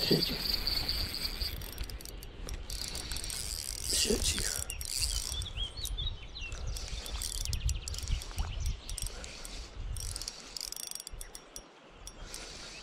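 Shimano Sephia spinning reel being cranked to fish a topwater lure back: fine rapid clicking of the reel over a low rumble of wind and handling on the body-worn camera, with a thin high whine in the first second.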